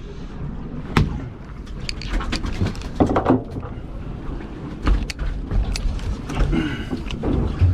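Irregular knocks, clicks and thuds on a small fishing boat, over a steady rumble of wind and water. A brief pitched sound comes near the end.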